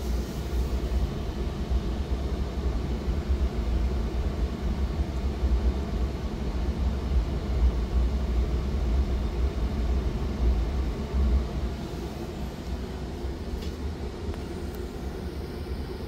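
Ruud Achiever 90 Plus gas furnace running with its burners lit: a steady low rumble of burner flames and combustion inducer fan. The inducer is running without the intermittent whine or squeal it sometimes makes.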